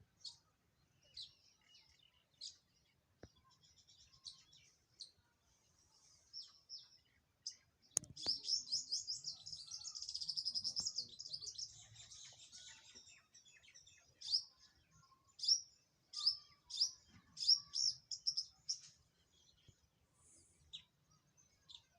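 Wild songbirds chirping. Scattered short calls give way to several seconds of dense, rapid twittering, then a run of louder sharp chirps, with a single sharp click just before the twittering starts.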